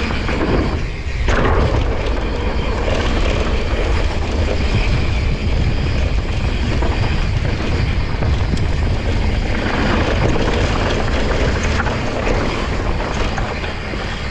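Wind rushing over a GoPro's microphone and the tyres of a Santa Cruz Nomad 6 mountain bike rolling over dry, loose dirt on a downhill run: a steady, loud roar with deep rumble.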